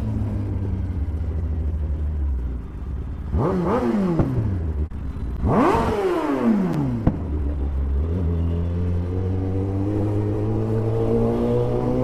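Kawasaki superbike engine running at low speed, blipped hard twice, about three and six seconds in, each rev shooting up and falling back, then pulling away with the pitch climbing steadily near the end.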